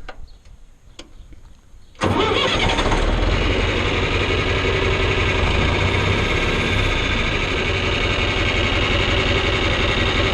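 John Deere 3010 tractor engine starting: a few faint clicks, then it fires up suddenly about two seconds in and keeps running steadily.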